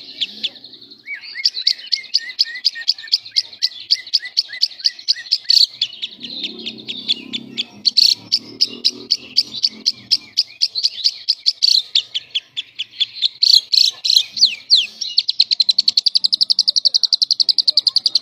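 Lovebird singing in the rapid, nonstop chattering style that keepers call 'semi konslet', a string of high chirps that runs into a fast, even trill near the end.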